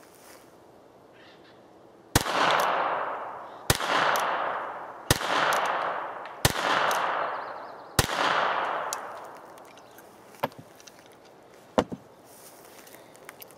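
North American Arms mini revolver in .22LR firing five shots, about a second and a half apart. Each shot is a sharp crack with a long echo fading behind it. The short barrel and cylinder gap give the little .22 a sharp bark.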